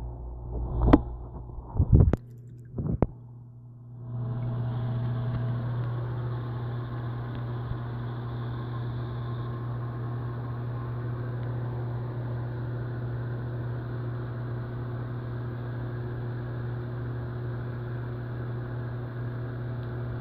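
A few knocks and thuds as the phone is handled in the water-filled sink, then, from about four seconds in, a steady electrical hum with a strong low drone.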